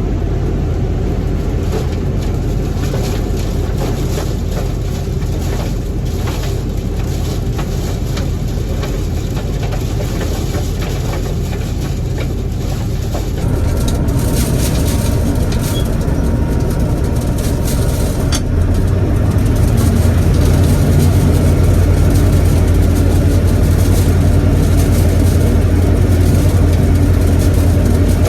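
1975 Gleaner L combine running steadily while harvesting corn with its 8-row corn head. The sound shifts about halfway through and grows louder and deeper a few seconds later.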